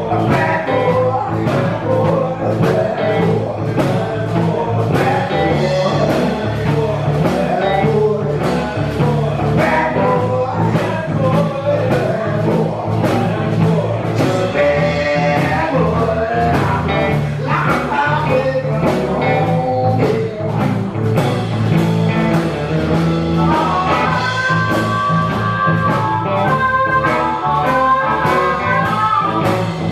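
Live blues band playing a song with a steady drum beat, guitar and a singing voice.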